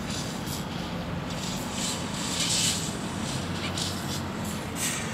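Road traffic: a steady low engine hum with tyre hiss, swelling briefly about two and a half seconds in as a vehicle passes.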